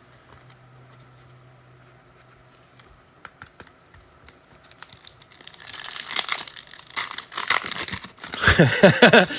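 A foil trading-card pack wrapper being torn open and crinkled. It starts about halfway in, after a few light clicks, and is loud.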